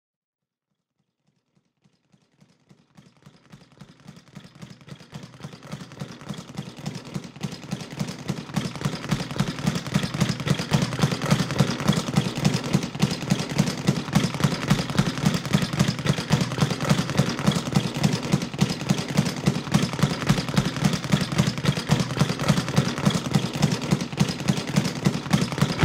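A boxing speed bag punched in a fast, even rhythm of about five hits a second, fading in from silence and growing louder over the first ten seconds.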